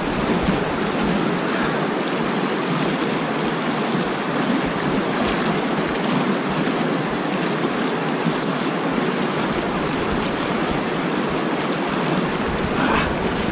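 Water rushing steadily over a concrete lake spillway and churning in the pool below.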